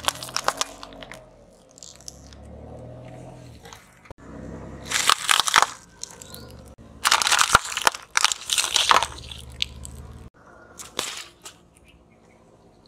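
A car tyre rolling over and crushing wrapped sweets and wafer bars: crackling, crunching bursts of snapping wrappers and breaking contents, five separate times, with a low engine hum in between.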